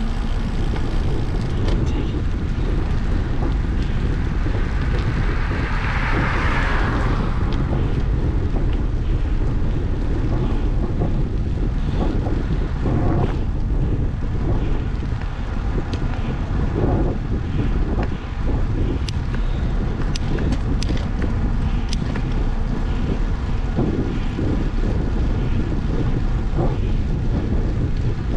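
Wind buffeting the microphone of a camera on a moving bicycle: a steady, loud low rumble. A brighter hiss swells for a couple of seconds about six seconds in, and a few sharp ticks come near the end.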